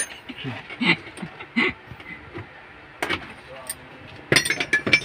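Metal hand tools clinking and tapping against metal, with a couple of single clicks and then a quick run of ringing clinks near the end. A few brief voice sounds come in the first couple of seconds.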